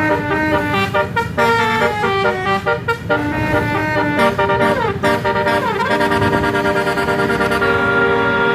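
Telolet basuri bus horn playing a tune: several horn tones sound together as a chord, stepping quickly through short notes at first, then swooping down and up twice just past the middle, and finally holding one chord steady.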